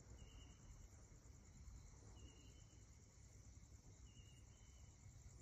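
Faint night insects: a steady high-pitched cricket trill, with a short chirp repeating about every two seconds.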